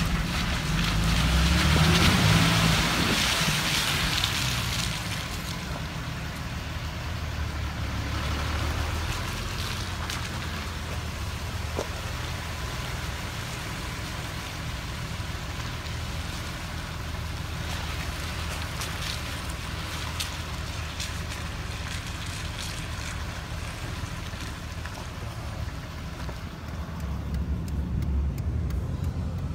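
Car running with a steady low rumble. A louder hiss swells and fades over the first few seconds, and a few light clicks come around the middle.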